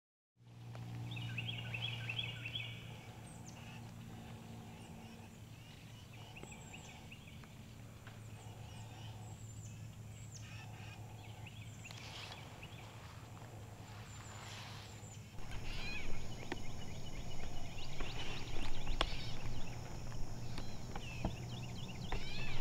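Birds calling and chirping over a steady low hum. About fifteen seconds in the sound jumps louder, with busier birdsong and small sharp clicks and rustles.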